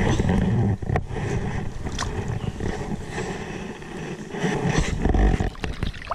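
Low, uneven rumble with scattered knocks, typical of handling noise on a body-worn camera, mixed with light sloshing as hands go into shallow creek water to release a caught fish.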